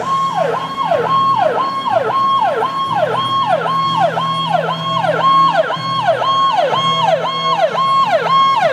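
Fire engine's electronic siren on a fast yelp, each cycle rising quickly, holding briefly at the top and falling again, about twice a second.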